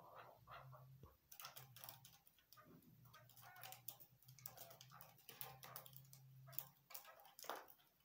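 Caged chukar partridges making faint, irregular clicks and taps with a few soft short notes, over a low steady hum.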